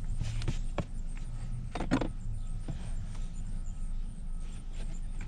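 Scattered clicks and knocks of hands working a new 6x9 speaker and its plastic trim into a car's rear deck, the loudest knock about two seconds in, over a low steady hum.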